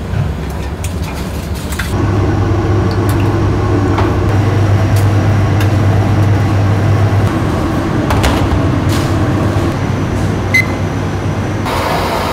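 A steady mechanical hum, with a few light metal clinks from steel meat hooks being hung on the rim of a stainless-steel drum oven. The hum changes character near the end.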